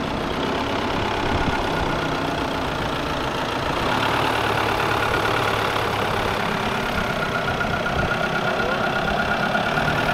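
Audi A5 engine running at low speed while the car creeps slowly forward, a steady engine note that gets a little louder about four seconds in. It is being driven gently back and forth to circulate freshly refilled coolant after a radiator change.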